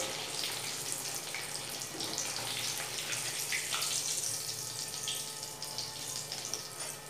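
Potato-stuffed bread rolls deep-frying in hot oil in a steel kadai: a steady sizzle as they are lifted out golden brown with a wire strainer, with a few faint clicks.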